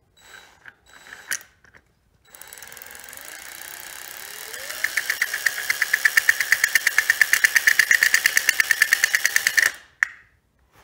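Distributor shaft spun by an electric drill, the motor rising in pitch as it speeds up, with a fast, even train of sharp clicks joining in about halfway through and stopping abruptly near the end. The distributor is being turned on the bench with 12 volts on the coil to check the point dwell.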